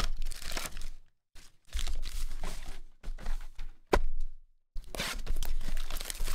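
Plastic wrap crinkling and tearing as a shrink-wrapped trading card box is unwrapped and opened, in bursts with short pauses. A single sharp knock about four seconds in.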